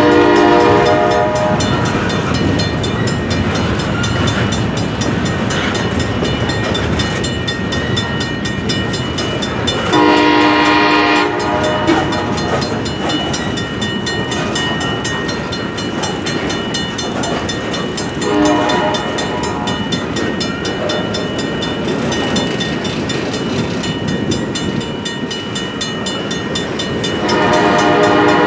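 Freight cars rolling past with a steady rumble and clatter of wheels on rail, while a multi-chime train horn sounds four times over it: a blast at the start, a longer one about ten seconds in, a short one a little past halfway, and a long one near the end.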